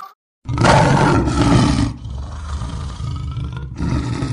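Loud roaring sound effect of a channel logo intro, starting about half a second in after a moment of silence, loudest for its first second and a half and then carrying on lower.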